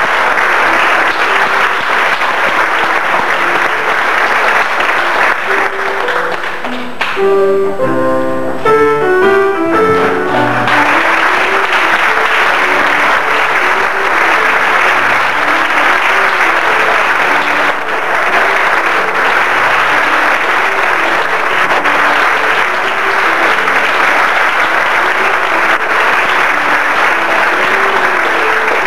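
Audience applauding with instrumental music playing underneath. About seven seconds in the clapping dies down for a few seconds, leaving the music clear, then picks up again and carries on over it.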